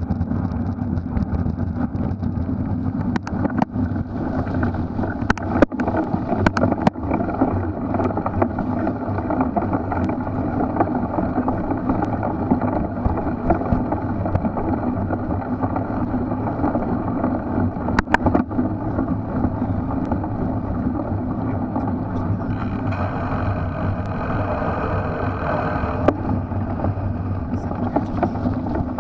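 Riding noise from a Specialized Crux Elite X1 cyclocross bike on a muddy race course: a steady rumble of wind and tyres. Several sharp knocks come in the first quarter and one more a little past halfway.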